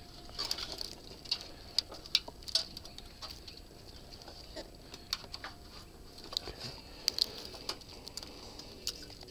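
Irregular sharp cracks and ticks of evergreen twigs and bark being brushed and climbed through in a tree, over a faint steady high hiss.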